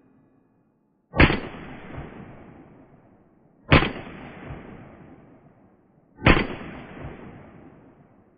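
Soviet Makarov PM pistol firing 9×18mm rounds: three single shots about two and a half seconds apart. Each shot trails off in echo, with a fainter echo thump returning just under a second later.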